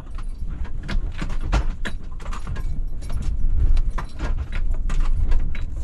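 A van's loose contents and fittings rattling and clinking irregularly as it jolts slowly over a rough, rutted dirt road, over a low rumble of engine and tyres, heard from inside the cab.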